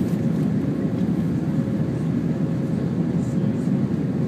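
Steady cabin roar of a jet airliner climbing after take-off, heard from a window seat over the wing: engine and airflow noise with a faint constant hum above it.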